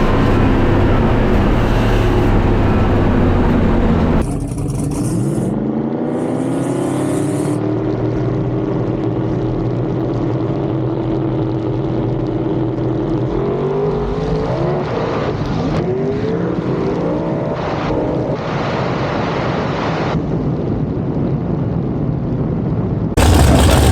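Race car engines running loud, then revving up with rising pitch about four seconds in and again midway, with abrupt changes in the sound where clips are cut together.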